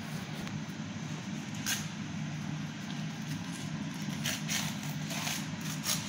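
A steady low background hum with a few light clicks and taps scattered through it.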